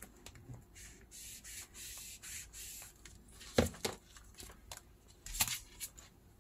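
Small glass bottle rubbed back and forth over clear stamps laid on paper: a soft, repeated scratchy scuffing. Two sharp knocks follow, about a second and a half apart.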